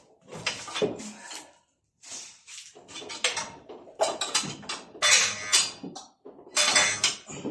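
Metal tools and engine parts clinking and clattering in quick, irregular knocks during an engine teardown.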